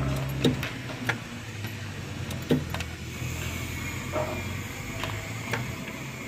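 Ignition key clicking and rattling in a road roller's key switch as it is turned several times, with no cranking from the starter: the ignition switch is faulty.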